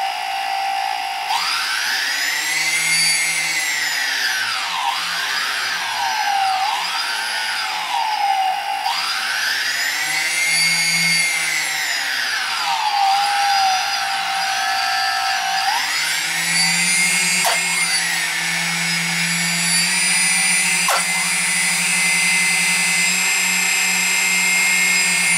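The four stock brushless motors of a DJI Phantom 2 Vision quadcopter running without propellers, a whine that rises and falls as the throttle is pushed up and eased back twice, then holds at a steady higher speed from about two-thirds of the way through. The owner says these motors make some noise, one of them worst of all.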